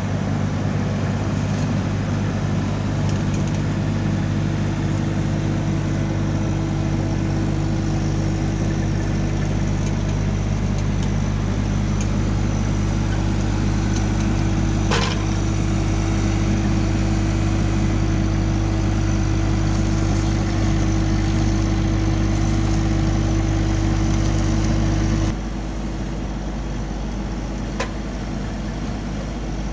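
Diesel engine of a compact earthmoving machine running at a steady speed, with a single sharp clank about halfway through. Near the end the deep engine tone suddenly drops away and the sound becomes quieter.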